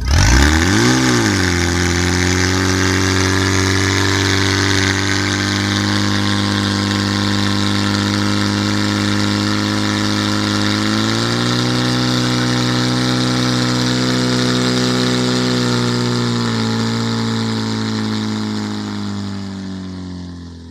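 Portable fire pump's petrol engine running at high revs while it pumps water from the tank out through the hose lines. It revs up and back once at the start, steps up in pitch about halfway through, then falls back a little and fades near the end.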